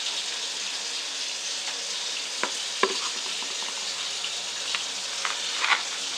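Kitchen tap running in a steady hiss while hands squish and slap sliced raw chicken breast coated in sweet chili sauce in a plastic bowl, with a few sharper wet squelches, twice about two and a half to three seconds in and once near the end.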